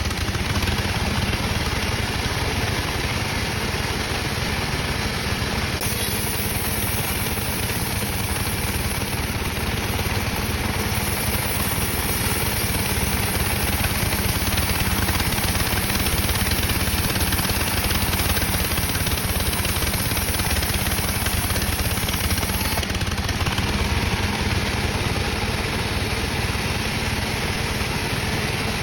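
Sawmill saw machinery running with a steady mechanical drone and hiss. The high hiss brightens about six seconds in and eases a few seconds before the end.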